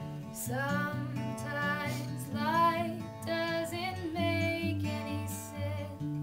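A woman singing to a plucked steel-string acoustic guitar. The voice comes in about half a second in over the guitar.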